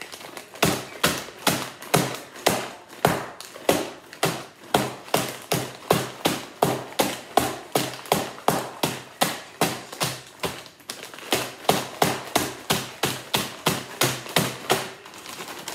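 A bag of fruit being pounded on a hard counter to crush the fruit: a steady run of knocks, about two to three a second, with a short pause about eleven seconds in.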